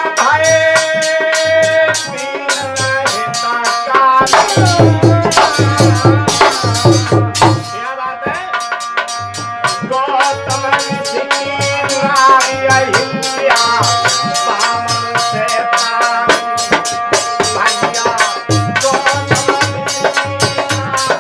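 Harmonium and dholak playing a Hindi folk bhajan: the harmonium holds sustained reed chords while the dholak beats a steady rhythm with deep bass strokes and crisp high slaps, joined by a jingling rattle-like percussion. A man's voice sings over it in places.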